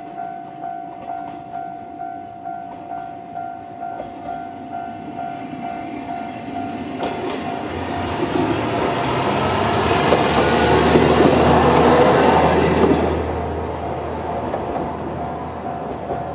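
Japanese level-crossing warning bell (its normal electronic sound) ringing steadily at about two strokes a second, while a Kanto Railway KiHa 2200-series diesel railcar passes over the crossing. The train's noise swells from about seven seconds in and drowns the bell, loudest around ten to thirteen seconds. It then eases off, leaving a low engine drone as the bell comes back through.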